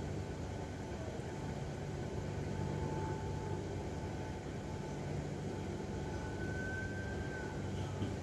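Steady low hum of idling vehicle engines, with a thin, faint high tone held through it.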